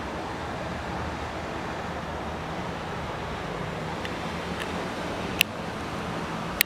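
Steady rushing outdoor noise with a low hum under it, broken by two sharp clicks, one about five and a half seconds in and one near the end.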